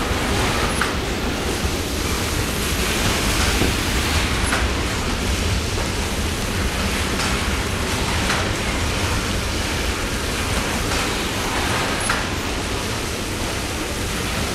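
Loaded coal hopper cars rolling past under an overhead coal-spray rig, with water falling on the loads: a steady rushing noise with a few faint clicks.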